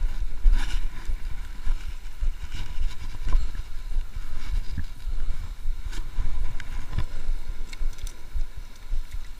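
Wind buffeting the camera microphone: a low, uneven rumble, with a few faint clicks.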